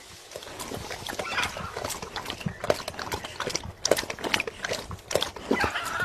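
Blue-and-gold macaw gnawing at a green fruit: irregular sharp beak clicks and crunching knocks, a few a second.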